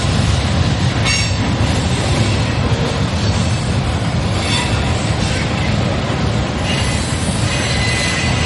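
Freight cars of a mixed freight train rolling past: a steady rumble of steel wheels on rail, with high-pitched wheel squeals about a second in, around the middle, and again near the end.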